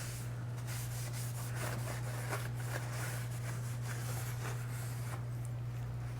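Light scrubbing and scraping strokes on the corroded housing of a disco light being cleaned by hand, irregular and faint, over a steady low hum.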